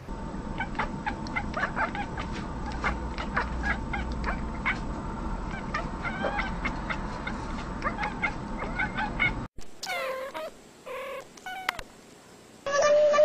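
Cats meowing: many short, high mews come in quick succession over a steady hum. After a sudden cut, a few longer meows follow, and a loud, drawn-out call sounds near the end.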